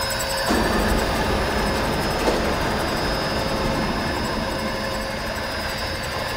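Havesino HN650R slitter rewinder running while slitting hot stamping foil: a steady machine hum with a thin high whine as the foil web runs over the rollers. A single short tick comes a little after two seconds in.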